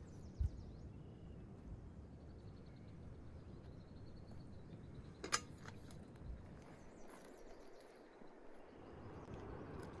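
Quiet outdoor ambience: a low steady rumble with faint repeated bird chirps over the first few seconds, a soft thump near the start and one sharp knock about five seconds in.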